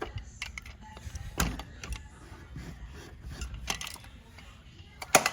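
Scattered handling noises from close-up work on a pet door: light clicks and knocks, with a sharp loud click near the end.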